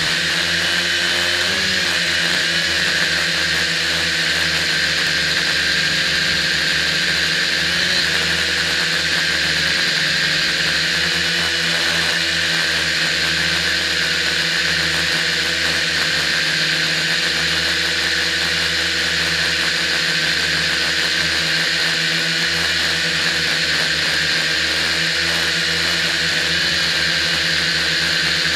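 A small quadcopter's electric motors and propellers whirring steadily in flight, heard close up from a camera mounted on the airframe.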